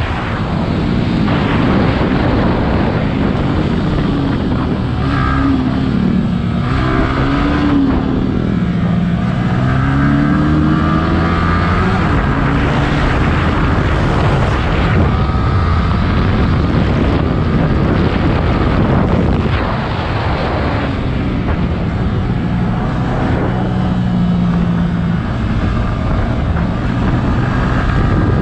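Yamaha R15 V3's 155 cc single-cylinder engine heard from onboard on a track lap, its pitch rising and falling with throttle and gear changes, under steady wind rush on the microphone.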